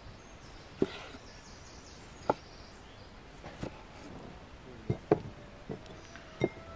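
Kitchen knife slicing through tomatoes and knocking on a wooden log cutting board: about seven sharp, irregular knocks roughly a second apart, two of them close together a little before the end.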